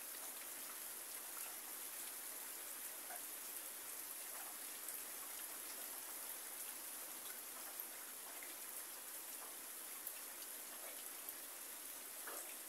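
Rain falling steadily: a soft, even hiss with scattered faint drips.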